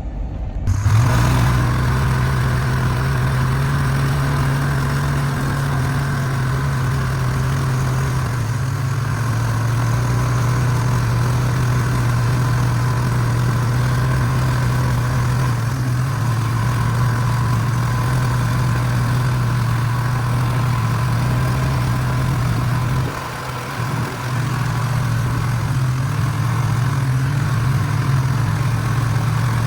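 A heavy engine running at a steady speed, a constant low drone, with a short drop in level about 23 seconds in.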